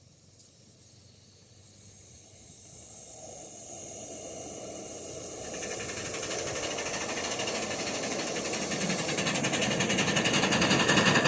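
Scale live-steam train approaching, its hissing running sound growing steadily louder from faint to loud, with a fast pulsing in the last few seconds.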